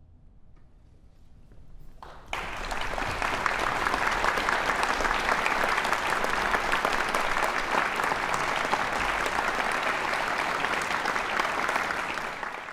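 Concert audience applauding, breaking out suddenly about two seconds in once the orchestra's last note has died away, then steady clapping that begins to fade at the very end.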